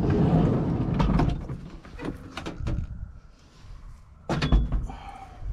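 A van's sliding side door rolled open, a loud rumbling slide lasting about a second and a half. A few light clicks follow, then a heavier clunk about four and a half seconds in as a bike is handled inside the van.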